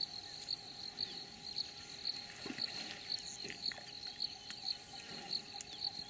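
An insect chirping steadily in a high, even pulse about three times a second, with a few faint, brief animal calls beneath it.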